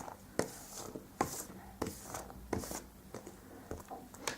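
Light taps and knocks, roughly one every 0.7 seconds, some with a short scraping rustle: hands working modelling dough and plastic moulds on a tabletop.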